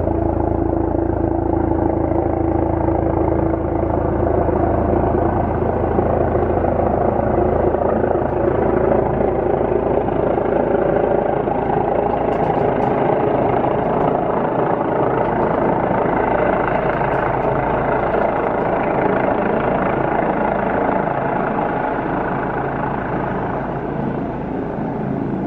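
Helicopter running loudly and steadily as it comes in to land, a constant drone of rotor and turbine noise. The deepest tones fade after about ten seconds, and the sound eases slightly near the end.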